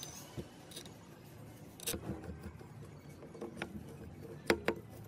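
A few sparse metallic clicks and taps of a hand tool against a small four-stroke engine's aluminium crankcase during reassembly, the loudest two close together near the end.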